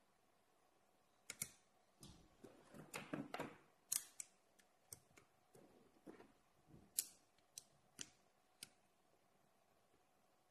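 Ring magnets and steel balls clicking and clinking as they snap together under the fingers while a magnetic ball structure is assembled by hand. About ten sharp, irregularly spaced clicks, with softer handling rustle between them in the first half.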